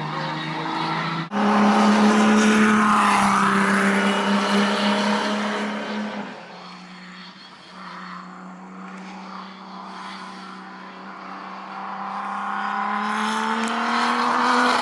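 March 86G sports prototype's Buick V6 racing engine at speed on track. After a sudden jump about a second in, it runs loud and close with a steady high note for several seconds. It then fades away as the car moves off, and grows louder again near the end as it comes back.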